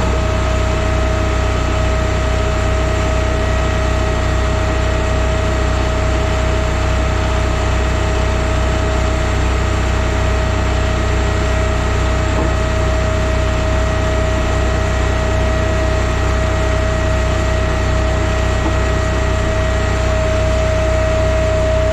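Timberwolf Alpha 6 hydraulic log splitter's engine running steadily between splits, a constant drone with a steady high whine over it.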